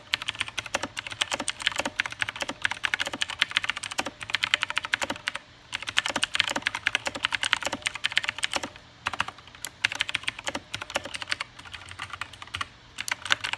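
Fast typing on a Razer BlackWidow X Chroma mechanical keyboard with Razer Green switches: a rapid, irregular stream of loud keystroke clicks, with a couple of brief pauses.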